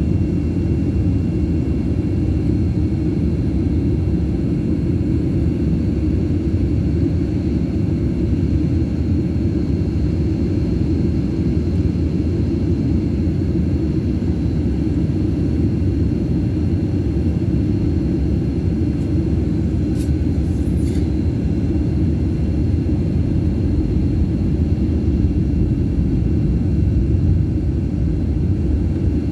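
Jet airliner engines and cabin air heard from inside the passenger cabin on the ground before takeoff: a steady low rumble with a faint high whine. Two faint clicks come about two-thirds of the way in.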